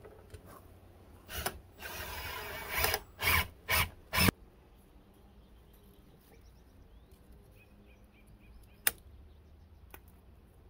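A power tool running in several short bursts, the last three brief and loud, then a single sharp click later on.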